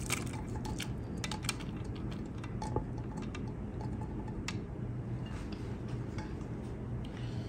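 Last drips of gizzard cooking liquid falling through a metal mesh sieve into a glass bowl, with scattered faint ticks and light clinks over a steady low hum.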